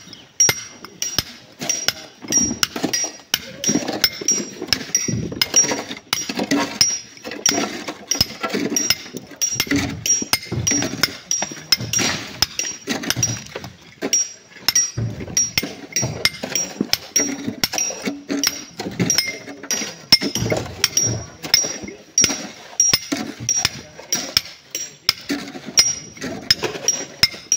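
Rock being cut by hand: a hammer striking a steel tool in a steady rhythm of about two ringing metallic clinks a second.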